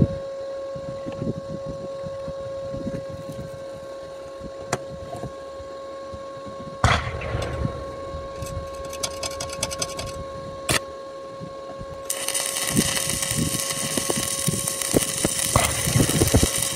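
Stick (manual metal arc) welding at 120 amps on a steel frame corner: after a few sharp clicks, the arc strikes about twelve seconds in and runs with a steady crackling hiss. A faint steady hum sits underneath throughout.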